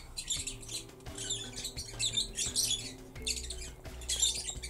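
Small plastic toy pieces rubbing and clicking between the fingers as an accessory is pushed onto a Polly Pocket doll's head: a series of short, high rustles, several in a row.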